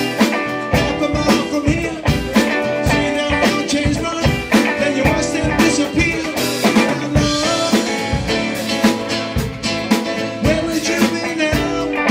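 A live band playing a steady, driving groove: a drum kit keeping an even beat under guitar.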